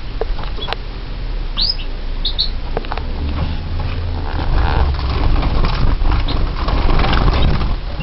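Caged finches and canaries: a few short, high chirps about two seconds in, then wings fluttering and rustling over a low rumble.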